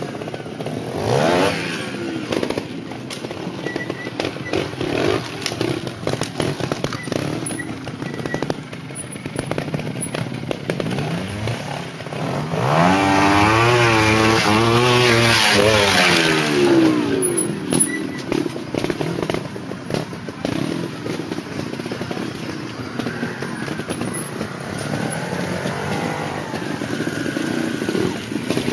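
Trials motorcycle engine blipping and revving as the bike picks its way over dirt and rocks, with a loudest run of quick rising and falling revs about halfway through.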